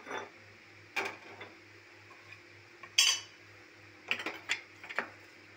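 Small aluminium tadka pan and its wire handle clinking and knocking against the gas stove's pan support: a few separate metal clinks, the sharpest and loudest about three seconds in, then a quick run of lighter clinks a second or so later.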